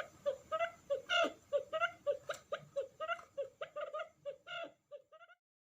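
Quail calling in a rapid series of short chirping notes, about three to four a second, as used for luring wild quail. The notes grow fainter and stop about five seconds in.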